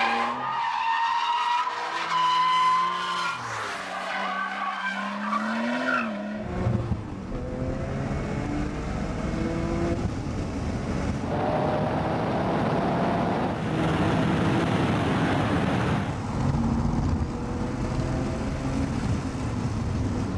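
RUF CTR Yellow Bird's twin-turbo flat-six driven hard, its pitch rising and falling, with tyre squeal in the first few seconds. About six seconds in, a louder rush of road and wind noise sets in, and the engine climbs in pitch through several gear changes.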